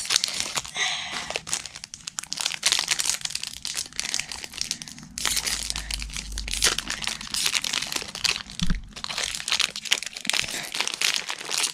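Pokémon card packaging being opened by hand: the plastic blister pack and the foil booster wrapper crinkling and tearing in a dense run of crackles and rips.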